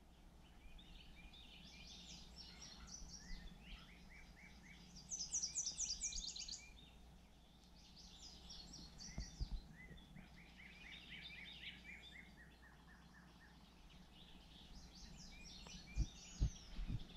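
Songbirds singing: several songs of quick repeated notes, one after another, some of them high and thin. A few dull thumps come near the end.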